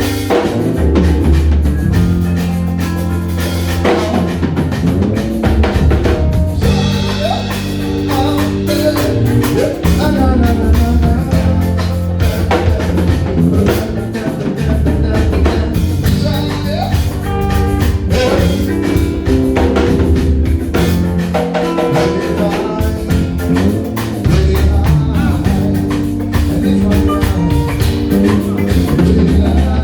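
A band playing a song with a steady drum-kit beat and a bass line under guitar or other pitched parts, at a loud, even level throughout.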